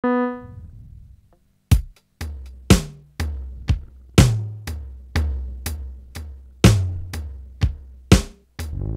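Lo-fi instrumental intro on an electronic keyboard. A single note rings out and fades. Just under two seconds in, a drum-machine beat with a bass line starts at about two hits a second.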